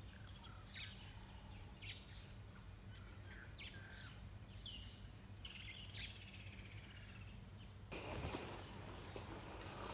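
Wild birds calling faintly in the bush: short, sharp chirps about once a second, with a few lower whistled notes, over a steady low hum. About eight seconds in, a louder even hiss of noise takes over.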